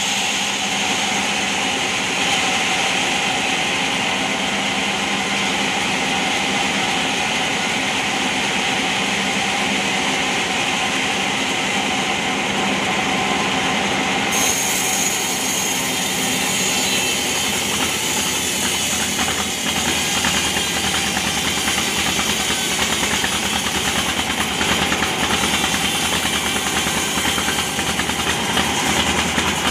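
Engine-driven bandsaw mill running steadily, its band blade sawing lengthwise through a large log. The sound turns brighter and hissier abruptly about halfway through.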